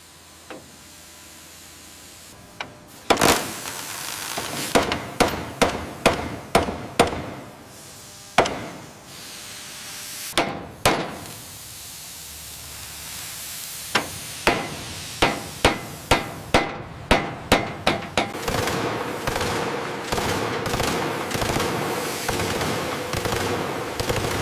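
Hammer blows on steel as rivets are driven into a new hull plate: sharp metallic strikes, scattered at first, then an even run of about two or three a second. In the last six seconds a steady hiss with a hum takes over.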